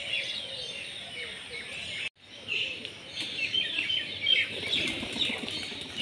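Many small birds chirping at once in a busy chorus. The sound cuts out briefly about two seconds in, and pigeon wings flap near the end.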